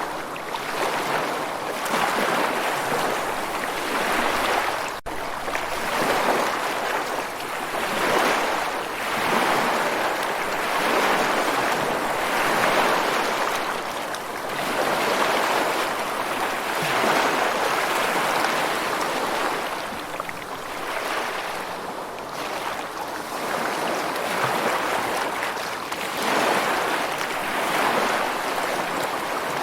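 Ocean waves washing in, a rushing water sound that swells and fades every few seconds, with a brief break about five seconds in.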